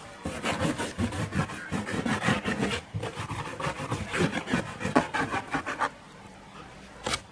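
Kittens' claws scratching against a cardboard box as they scrabble at its walls: a rapid run of rasping scrapes with a short break about three seconds in, stopping about six seconds in.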